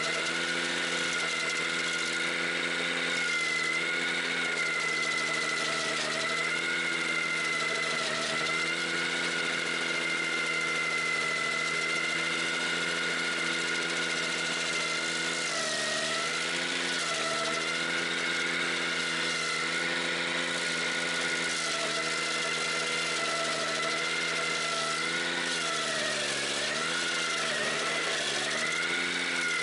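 Ventrac 4520Z tractor engine running hard, driving a stump grinder wheel that chews into a tree stump. The pitch dips briefly around the middle and several times near the end as the cutter bites in and the engine loads down.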